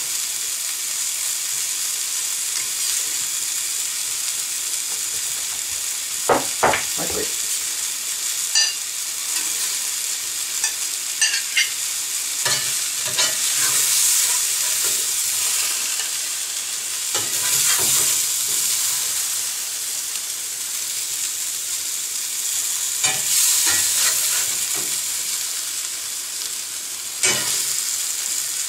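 Fried potatoes with bacon and onion sizzling steadily in a cast-iron skillet, frying in butter. A metal spatula scrapes and clinks against the pan now and then as they are stirred and dished out.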